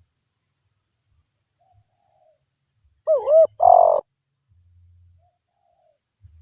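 Spotted dove (tekukur) cooing: one loud, close coo phrase about three seconds in, with fainter coos from farther off before and after.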